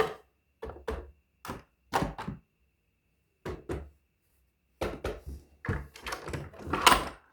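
A series of short knocks and thunks in a small room, mostly in pairs, then coming thicker and quicker over the last couple of seconds.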